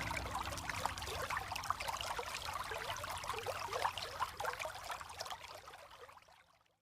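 Waterfall and rain ambience: a dense, even rush of splashing and trickling water. It fades out to silence over the last second or so.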